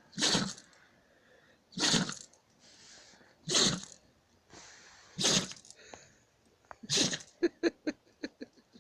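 A dog sneezing over and over in a sneezing fit: five sharp sneezes, each under two seconds after the last, with breaths drawn in between. Near the end comes a quick run of short puffs. The owner wonders what the dog sniffed to set it off.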